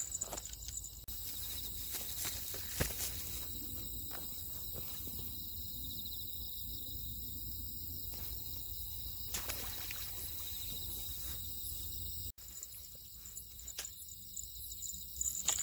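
Night-time outdoor ambience of steady insect chirring, with a few short knocks and rustles of gear being handled. The background drops abruptly about twelve seconds in.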